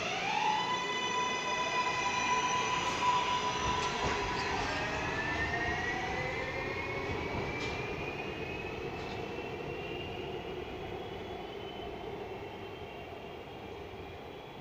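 R143 subway train pulling out and accelerating away: its traction motors whine in a cluster of rising tones at the start. One tone holds steady for about four seconds while others keep climbing slowly. The whine and the rumble of the wheels on the rails fade steadily as the train moves off.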